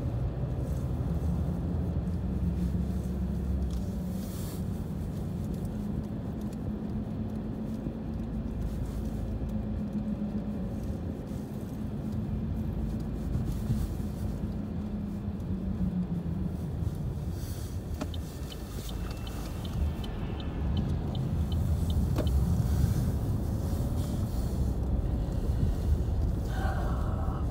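Car cabin noise while driving: a steady engine and tyre rumble heard from inside the car. For a few seconds past the middle, a light, even ticking of about three ticks a second runs alongside.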